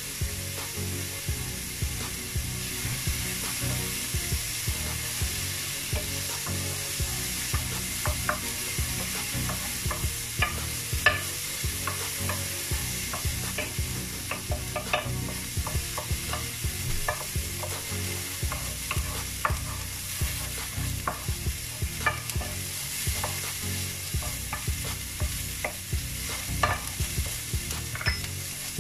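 Wooden spoon stirring and scraping diced carrots and peas in a hot frying pan, with irregular knocks of the spoon against the pan over a steady sizzle of frying.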